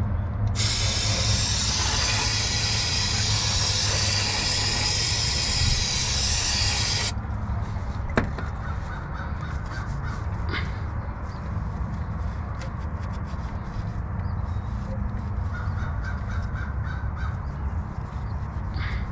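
Aerosol cleaner sprayed from a can in one continuous hiss of about six seconds onto the engine's oil filter mount, cutting off sharply, followed by a single click. Crows caw in the background later on.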